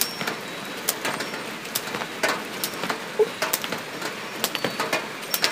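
Composed soundscape of irregular sharp clicks and crackles over a faint hiss, with a short low blip about three seconds in.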